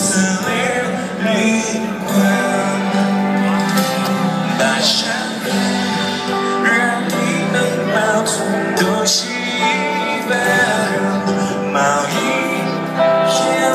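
Live band music heard from within the concert crowd: a ballad with singing and guitar over amplified backing.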